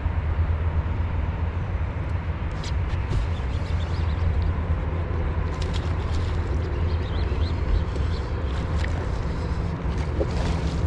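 Boat motor running steadily with a low hum, with a few faint clicks scattered through it.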